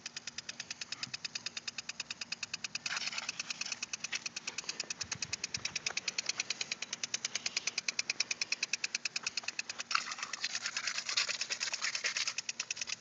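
Plastic impulse sprinkler ticking rapidly and evenly, about ten clicks a second, over the hiss of its water jet. The spray hiss swells about three seconds in and again from about ten to twelve seconds.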